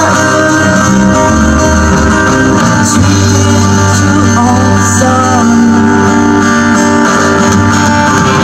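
Live band music: a woman singing a melody into a microphone over guitar accompaniment.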